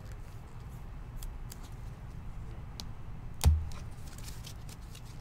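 Light clicks and rustles from trading cards being handled, over a low steady hum, with one sharp thump about three and a half seconds in.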